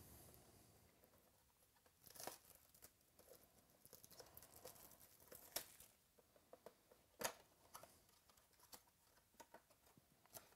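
Faint crinkling and tearing of plastic shrink wrap being stripped off a sealed trading card box, with a few sharp clicks as the cardboard box is handled and its flap opened.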